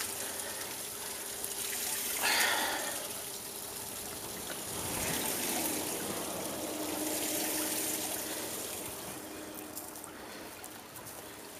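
Water splashing and trickling as a cast net is worked over the side of a boat, with a brief splash about two seconds in.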